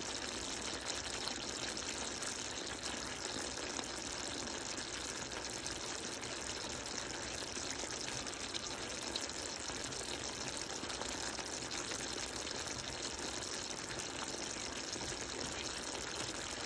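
Chicken wings cooking in a glaze, sizzling and bubbling steadily with fine crackles.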